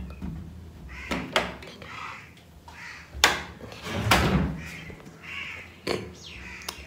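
A wooden door being opened and shut: several sharp knocks and latch clicks, the loudest about three and four seconds in, with a few short creaks between them.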